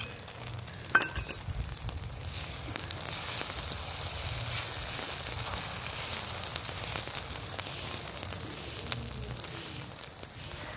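Egg omelette batter sizzling as it fries in oil on a flat tawa griddle: a steady frying hiss with small crackles. A light metal tap comes about a second in as a knife blade spreads the egg across the griddle.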